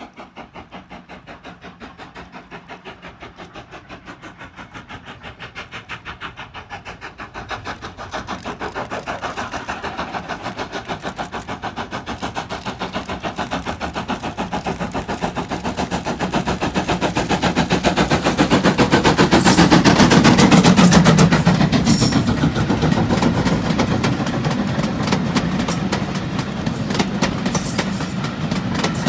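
GWR Hall class 4-6-0 steam locomotive Foremark Hall working hard on the approach, its two-cylinder exhaust beating in a quick, even rhythm. The beats grow louder to a peak as the engine passes, then the coaches rattle over the rail joints near the end.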